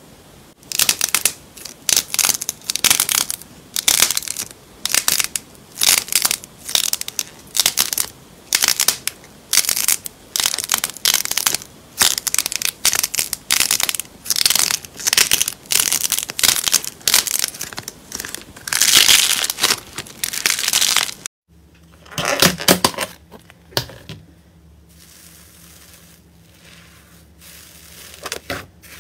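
Soft yellow slime squeezed by hand over a bubble-shaped squeeze toy, giving a quick run of crackling squelches about two a second, loudest about 19 s in. It stops suddenly about 21 s in; a few more squelches follow, then quieter pressing sounds as a fist pushes into a tub of brown slime.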